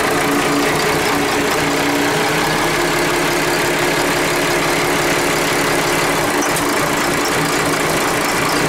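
Cummins 6BTA 5.9 inline-six turbo diesel marine engine running steadily at idle.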